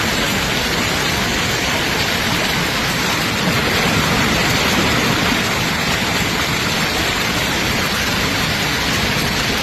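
Heavy rain and hail falling in a steady, dense hiss of many small impacts.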